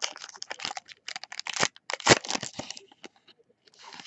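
Foil wrapper of a Panini Spectra football card pack being torn open and crinkled by hand: a quick run of crackling tears, loudest about two seconds in, thinning to a few faint crinkles near the end.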